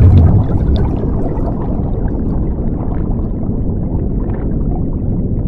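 Underwater bubbling and rumble, a dense gurgling wash that swells to its loudest right at the start and then runs on steadily.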